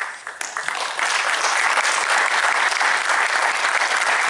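Audience applauding: a few scattered claps that swell into full, steady applause about a second in.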